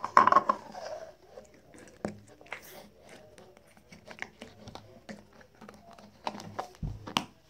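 Slime squelching as it is pushed down into a clear plastic cup. Scattered small clicks and crinkles follow as the plastic container is handled, with a few sharper clicks near the end.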